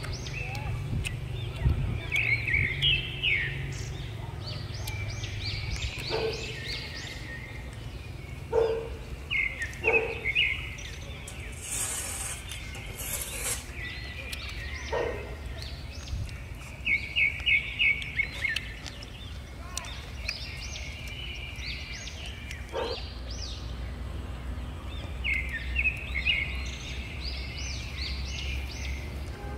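Small birds chirping in repeated quick runs of notes over a low steady hum. Now and then comes a soft knock, and about twelve seconds in a short crisp crackle, as a crispy-skinned roast goose is pulled apart by hand and cut with a knife.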